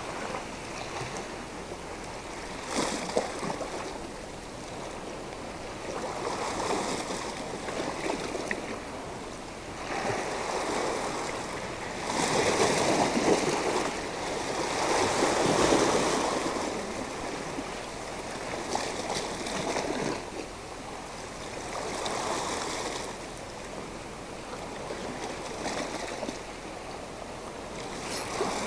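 Sea waves washing against a rocky shore, swelling and falling back every few seconds, with the biggest surges about twelve to sixteen seconds in.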